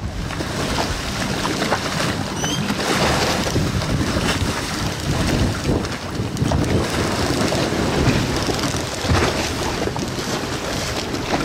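Strong Mistral wind buffeting the microphone, with choppy harbour water sloshing and slapping against moored yacht hulls and the quay.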